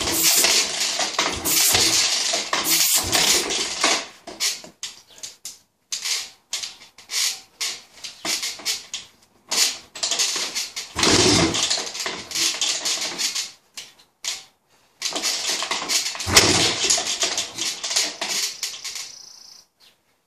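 Honda CR500 two-stroke dirt bike engine being kick-started, catching in three short spells of running with scattered single sharp pops between them, dying out each time. It fires but will not stay running, which the owner thinks could be a too-weak throttle valve spring in the Smartcarb letting the engine's vacuum bypass the choke circuit.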